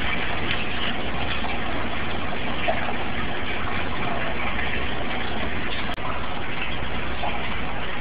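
Heritage Alexis 52-inch ceiling fan running, a steady whir of the spinning blades and motor, heard through a phone's microphone.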